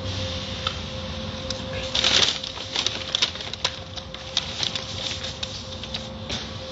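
Automatic tunnel car wash heard from inside the car: a steady machinery hum with a constant tone under water spraying against the glass. A loud rush of spray comes about two seconds in, followed by scattered sharp taps and splashes on the car body.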